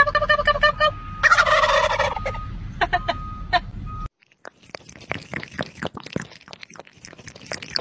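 Wild turkeys gobbling: quick rattling gobbles, with one louder, harsher gobble about a second in. At about four seconds it cuts to faint, irregular clicks and small splashes of water in a pet bowl.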